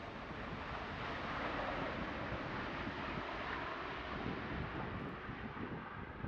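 Four turbofan jet engines of a C-17 Globemaster III on the runway, a steady broad jet noise with a low rumble underneath that eases a little near the end.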